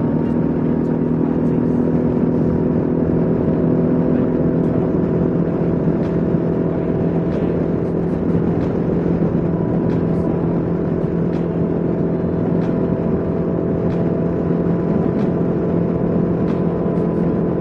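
Kawasaki KLR 650's single-cylinder four-stroke engine running at a steady highway cruise, a constant drone holding one pitch, mixed with wind and road noise.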